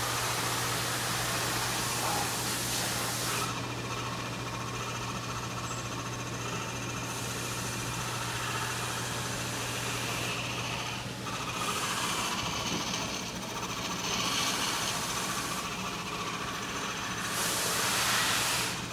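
Utica collarette cutter running as fabric feeds through its rotary slitting blades: a steady machine hum under a hiss that swells and drops back every few seconds.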